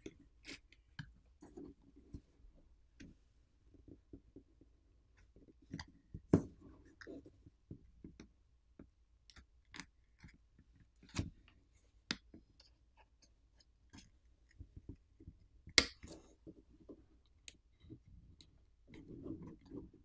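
Plastic opening pick prying and sliding along the edge of a smartphone's glass back plate to free it from its softened adhesive: scattered small clicks and scrapes, with a few sharper clicks, the loudest about six and sixteen seconds in.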